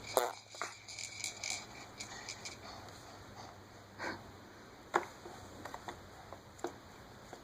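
Quiet room tone with a few faint, short clicks and taps: a couple at the start, then single ones about four, five and six and a half seconds in.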